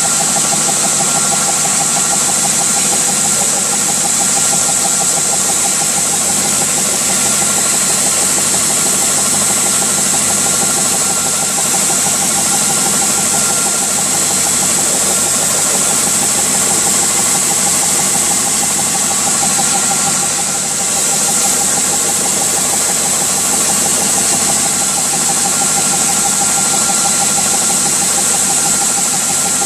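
Stationary belt sander running steadily while a small wooden piece is held against the moving belt and sanded to shape, with a constant high hiss over the motor's hum.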